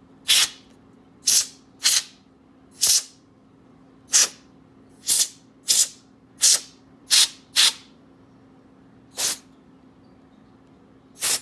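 Compressed-air duster can sprayed through its straw in about a dozen short, irregularly spaced hissing bursts, blowing dust out of laptop cooling fans.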